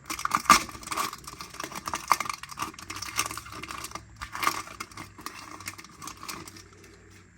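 A trading card pack's plastic wrapper crinkling and tearing as it is opened, with cards being handled: a busy run of small crackles and clicks that dies down near the end.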